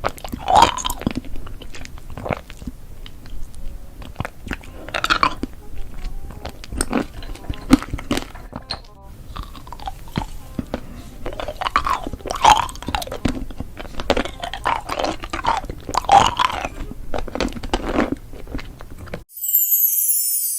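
A person chewing and crunching food, with many short crunchy bites one after another. Near the end it cuts off suddenly into a brief jingle.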